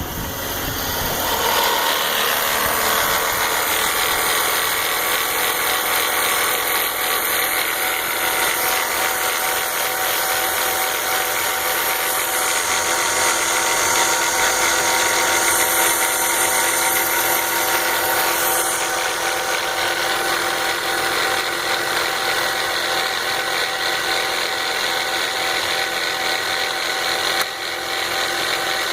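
BMW 325xi's inline-six engine running with a steady, fast metallic rattle over the engine note. It grows louder about a second or two in. The rattle does not change when the DISA intake valve is unplugged, so the DISA is not its cause.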